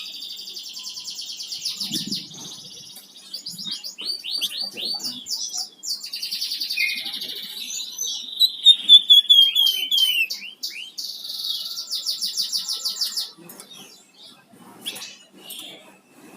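Flamboyan songbird singing vigorously: rapid high chirps and fast trills, with a loud falling run of notes about halfway through, and a fast rattling trill before the song eases near the end.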